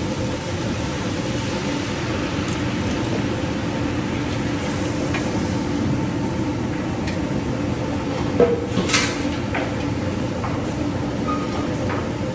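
Steady low rumble of a commercial kitchen's gas wok range and ventilation. About two-thirds of the way through comes a short metallic knock and a brief hiss.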